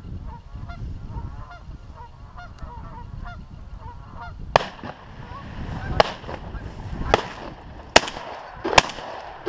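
A flock of geese honking, with wind buffeting the microphone. About four and a half seconds in, shotgun shots ring out, five in about four seconds, fired at the flock.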